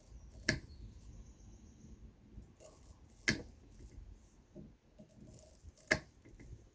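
Wire-cutter pliers snipping through copper, three sharp snips a little under three seconds apart, with faint handling noise between them.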